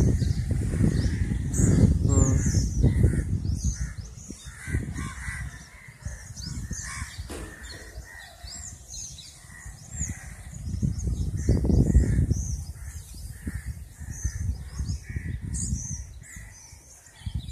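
Birds calling in the trees, many short high chirps repeating throughout. Low rumbles on the phone's microphone, loudest in the first few seconds and again about two-thirds of the way through.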